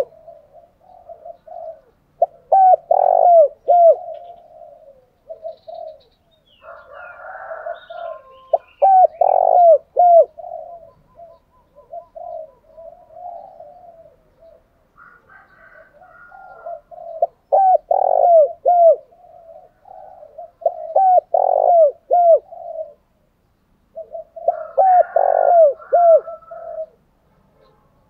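Spotted doves cooing in repeated bouts of quick, short coos, with brief pauses between the bouts. This is the excited cooing (thúc gù) played as a lure call to rouse captive male doves.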